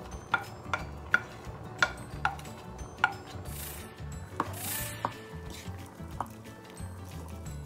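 A wooden spoon knocking against the rim of a ceramic plate about six times in quick succession, each knock ringing briefly, as chopped garlic is tapped off into a pot. After that come two brief rustling scrapes as the chopped vegetables are moved around.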